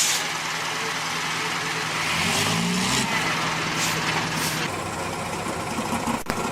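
Heavy truck diesel engine running under load, its pitch rising briefly about two seconds in, with several short hisses over the top.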